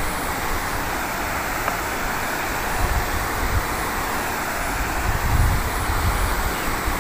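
Steady outdoor background noise, with low rumbling gusts of wind buffeting the microphone a few times.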